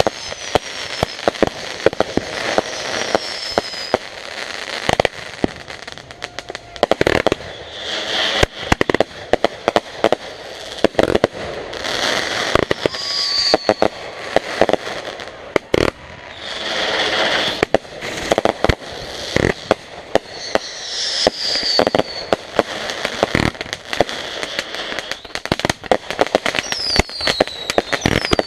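Consumer fireworks going off in a dense barrage: rapid sharp bangs and crackling throughout, with several whistles that fall in pitch and a few longer hissing bursts.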